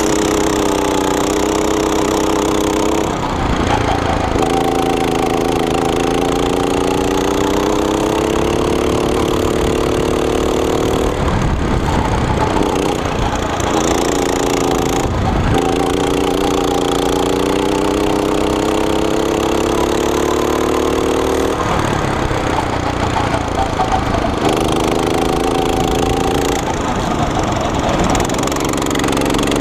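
Go-kart engine heard onboard under hard driving, its pitch climbing steadily through each straight and falling away as it slows for the corners, about four times over, with a constant rush of wind and track noise on the microphone.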